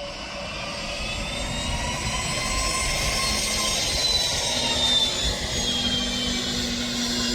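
Jet whine from a Boeing 717's rear-mounted Rolls-Royce BR715 turbofans, growing louder over the first few seconds, with a high whine that slowly falls in pitch over a low hum.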